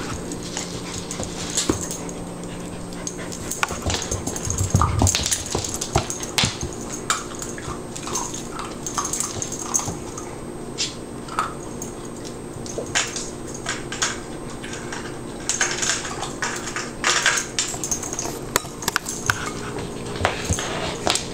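Standard poodle puppy working a rubber Kong food-dispenser toy around a hardwood floor: irregular knocks and clatters of the toy and kibble, with claws clicking on the wood.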